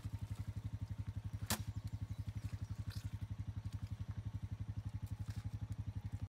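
An engine idling with a steady low pulse of about ten beats a second, and a single sharp click about a second and a half in.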